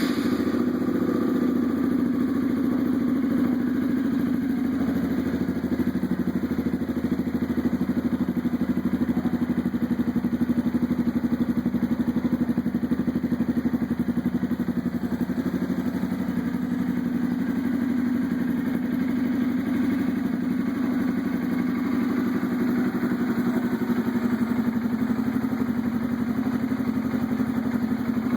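Honda Bros single-cylinder four-stroke motorcycle engine running steadily through a loud aftermarket exhaust: an even, fast exhaust beat that holds without rising or falling.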